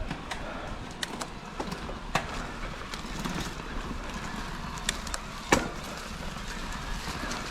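Footsteps of a hiker on a rocky mountain trail, with irregular sharp clicks and knocks, the loudest about five and a half seconds in.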